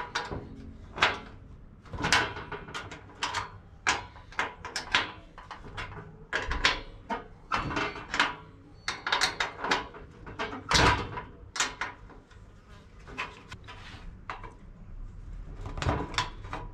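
Irregular metallic clicks, clinks and scrapes of hand tools, a wrench and then pliers, working the fasteners on a table saw's pressed-steel top. The strikes come about one or two a second, each with a short ring.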